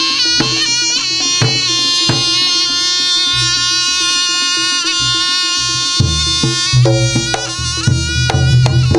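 Reog gamelan accompaniment: a nasal, reedy slompret shawm melody over kendang drums and gongs. About six seconds in, the shawm line drops back and the drum and gong strokes come to the fore.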